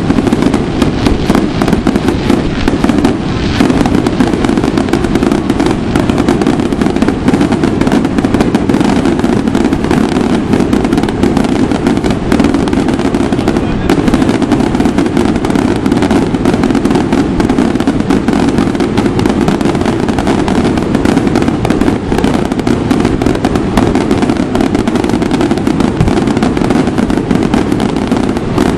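Dense, unbroken barrage of fireworks: many rapid crackling bangs a second, with no pause.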